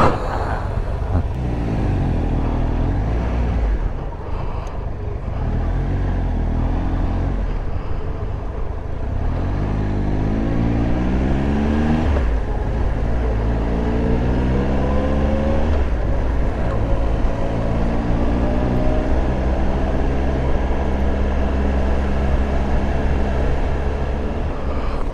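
Triumph Tiger Explorer 1200's three-cylinder engine pulling away and accelerating through the gears. The revs climb and drop back at each upshift, four times in the first half, then settle to a steady cruise.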